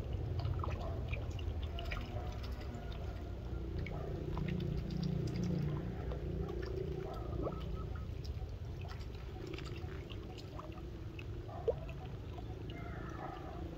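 Small splashes and drips of water as a live duckling, dangled from a bamboo pole as snakehead bait, paddles at the surface. Scattered small clicks and one sharp tick about three-quarters of the way through, with faint duckling peeps near the end.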